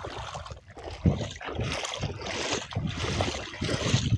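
Shallow water sloshing and splashing as a mesh keep net holding caught fish is moved through it, with several heavier splashes along the way.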